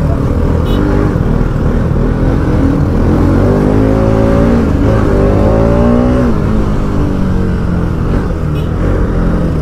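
Bajaj Pulsar NS200 motorcycle engine under way, its pitch climbing over a couple of seconds midway and then dropping back, over a steady low rumble.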